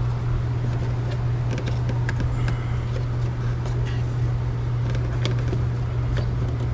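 Plastic air filter housing and new panel air filter being handled and fitted, with scattered light clicks and knocks of plastic, over a steady low hum.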